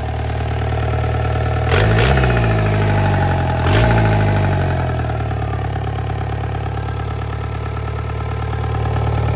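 Volkswagen ALH 1.9 TDI four-cylinder turbo-diesel running in an open engine bay. It is revved briefly twice, about two and four seconds in, with a sharp crack at the start of each rev, then settles back to a steady idle.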